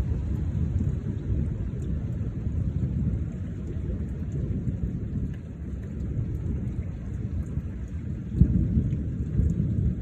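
Thunder rumbling continuously, with a sudden louder clap about eight and a half seconds in, over rain falling.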